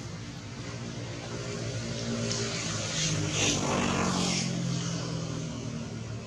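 A steady low engine hum from a motor vehicle. In the middle it swells into a louder rushing noise, then fades back.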